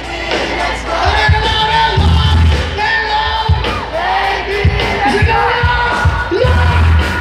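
Live rock band playing loud: a singer over electric guitars and bass guitar, with sharp beats through the music.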